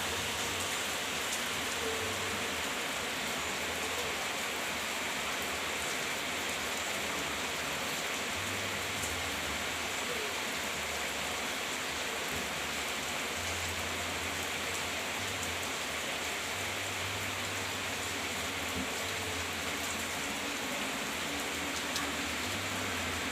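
Rain falling steadily: an even hiss with a few sharp drop ticks.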